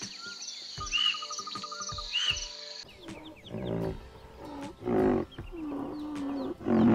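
Insects trill steadily and a bird calls about once a second; then, about three seconds in, the sound changes abruptly to a white rhinoceros giving a series of deep calls, with one long, wavering note in the middle and the loudest call near the end.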